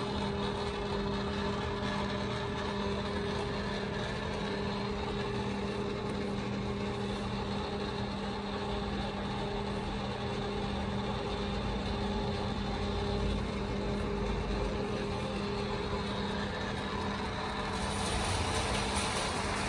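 Feeler FTL-618 tool room lathe running under power: a steady motor and gearhead hum with a constant low tone. A brighter hiss joins it near the end.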